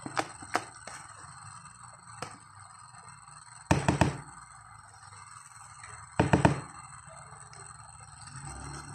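Spatula knocking against plastic mixing bowls while the ice cream mixture is scraped out: two short clusters of loud taps, about four and six seconds in, with a few light clicks between.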